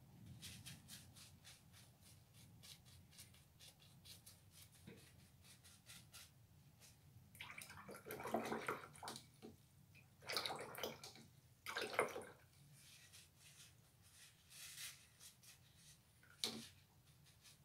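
Watercolour brush being swished in a jar of rinse water: a fast run of small clicks, then a few louder sloshing swirls, and one sharp tap near the end.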